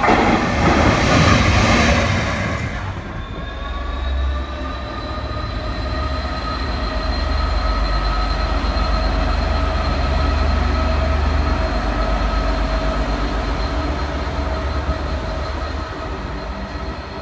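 A Colas Rail Freight diesel locomotive comes through with a loud rushing noise for the first three seconds. After a cut, another diesel locomotive runs steadily with a deep engine rumble and a whine at several pitches, rising slightly at first and then holding level.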